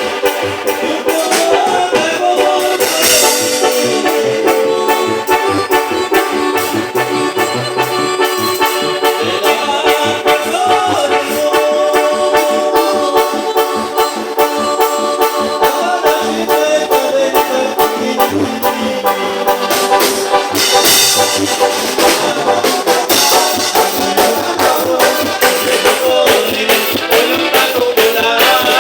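Latin band music with a steady beat, with an accordion playing the melody.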